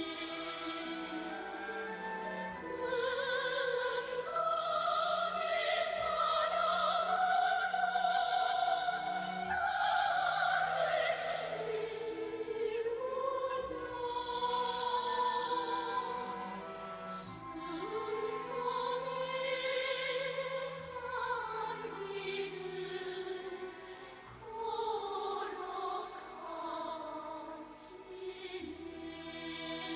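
Operatic singing with orchestral accompaniment: a voice holds long notes with vibrato and glides slowly between them.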